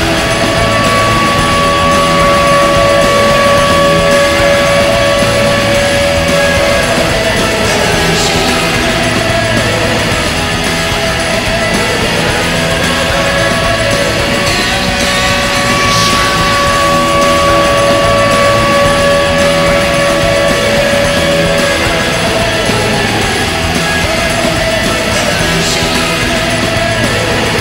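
Loud hard-rock goal song with electric guitar, the music played after a hockey goal horn. A long steady tone is held under it for the first several seconds and again for several seconds around the middle.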